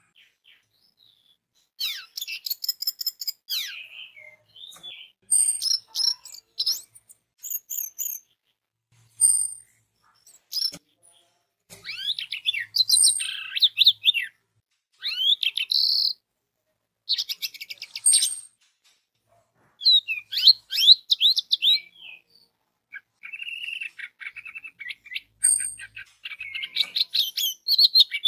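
Orange-headed thrush singing: a string of short, varied phrases of rapid high chirps, trills and whistles, broken by brief pauses.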